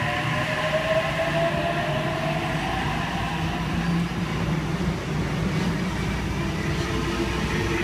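Sydney Trains Oscar (H-set) electric train departing and gathering speed past the platform. A whine from its traction motors rises in pitch over the first few seconds, then the steady rolling noise of wheels on rail carries on as the cars pass.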